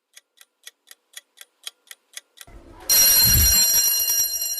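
A clock ticking about four times a second. About three seconds in, a single loud bell ring with a low thud starts and slowly fades.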